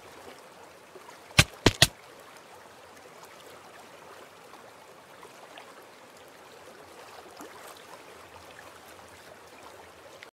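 Faint, steady stream of running water, with three sharp knocks in quick succession about a second and a half in.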